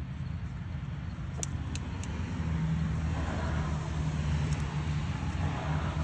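Predator 212cc single-cylinder four-stroke engine running steadily on its newly fitted carburetor, getting a little louder about two seconds in. A few light clicks come about a second and a half in.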